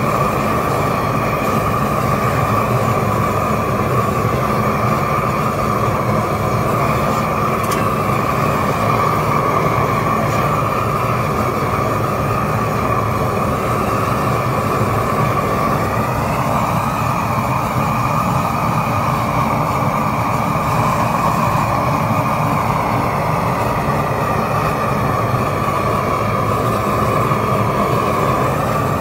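Propane roofing torch burning steadily, its flame held close over icy pavers.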